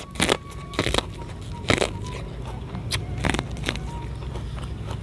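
Crunching bites into a raw purple corn cob, the kernels cracking between the teeth, with chewing in between: several sharp crunches in the first two seconds and a few more about three seconds in, over a low steady hum.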